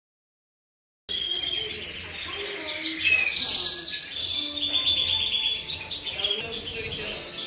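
Several red factor canaries singing and chirping together, with fast trills among the calls; the song starts about a second in. Cock canaries in full song like this are a sign of coming into breeding condition in early spring.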